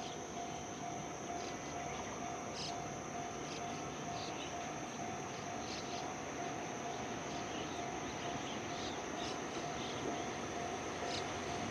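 Outdoor ambience beside a railway line: a steady insect drone with short high chirps now and then, over a low steady rumble.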